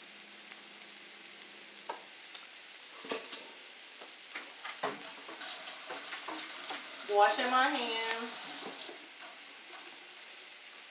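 Chopped onions and chicken sizzling steadily in butter and oil in a skillet on low-to-medium heat, with a few light knocks scattered through the first half.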